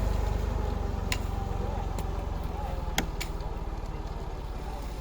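A large engine idling steadily with a low, even pulse, with a few sharp knocks about one, two and three seconds in.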